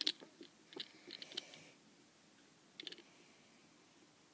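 Faint clicks and small handling noises from fingers working a lump of noise putty, in short clusters about a second in and again near three seconds.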